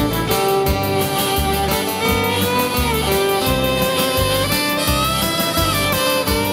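Background music with a steady beat under a melody.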